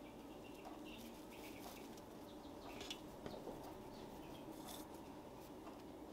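Faint rustling of marjoram sprigs being handled and laid down on a wooden table, with a few light taps about three seconds in, over a low steady room hum.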